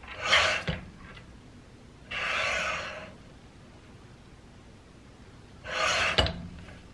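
Sliding paper trimmer: the cutting head scraping along its rail through the paper, three strokes about two to three seconds apart, each under a second long.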